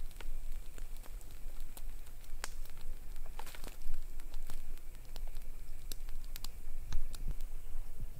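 Wood fire crackling under skewered quail, with irregular sharp pops and snaps scattered through it over a low steady rumble.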